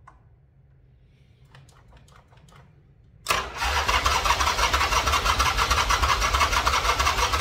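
A few faint clicks, then just over three seconds in the electric starter cranks the custom chopper's V-twin over with a fast, even churning. The engine does not catch; the owner puts this down to stale petrol and flooding.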